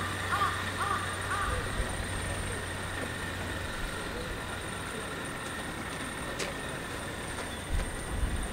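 A crow cawing in a quick run of short calls during the first second and a half, over a steady low background hum. A single sharp click comes about six seconds in.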